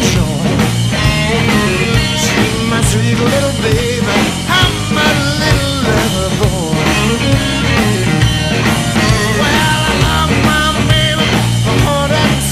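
Rock music with singing, guitar and a steady beat.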